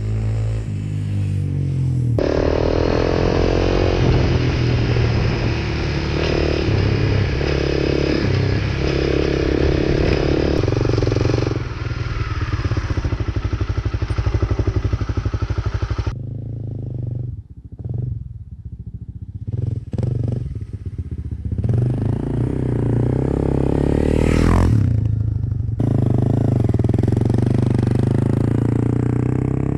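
Dirt bike engine running and revving as it is ridden, with the sound changing abruptly several times. It drops quieter briefly about 17 seconds in, and a rising whoosh comes about 24 seconds in as the bike passes close by.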